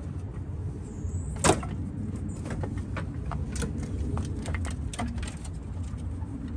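Metal parts and hand tools clinking and clicking as the top radiator support of a Jeep Grand Cherokee WK2 is worked free, with one sharp knock about a second and a half in and a scatter of small clicks after it, over a steady low rumble.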